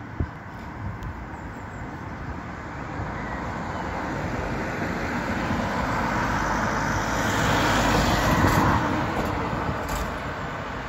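Mercedes-Benz Treka minibus driving past: its engine and tyre noise build as it approaches, peak about three-quarters of the way through, then fade as it pulls away.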